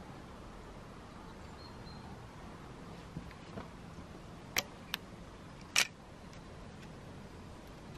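Steady faint outdoor background hiss broken by a handful of short, sharp clicks in the middle of the stretch: two soft ones, then two louder ones close together, then the loudest a second later.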